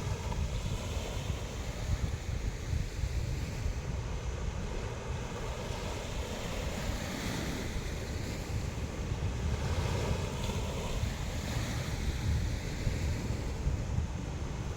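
Sea waves washing onto the shore in slow swells, under strong wind buffeting the microphone with a constant low rumble.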